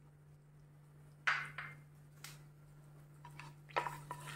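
A wooden spatula knocks once against a non-stick wok about a second in, then clicks and scrapes against it near the end as whole spices are stirred in hot ghee. A low steady hum runs underneath.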